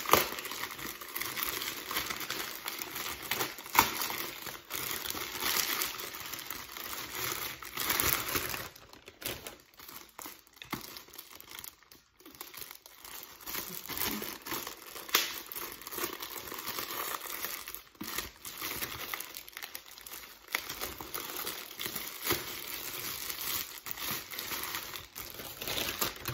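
Plastic packaging being handled and unwrapped: irregular crinkling and rustling with a few sharper snaps, as a wallet is taken out of its clear plastic bag.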